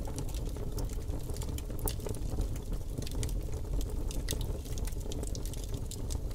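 Wood campfire crackling, with many irregular sharp pops and snaps over a steady low rumble of the burning fire.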